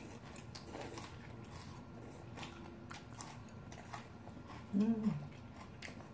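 Close-up eating sounds: noodles slurped and chewed, with many small clicks of chopsticks and a spoon against bowls. A short voiced sound comes about five seconds in.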